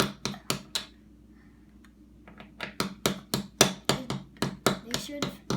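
Sharp taps of a plastic toy tool from a children's workshop set, about three a second, pausing for a second or so and then starting again.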